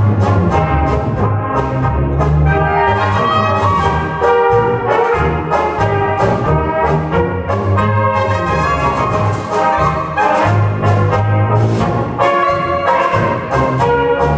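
Brass band playing a polka live: trumpets carry the melody over tubas and trombones, with drums keeping a steady beat.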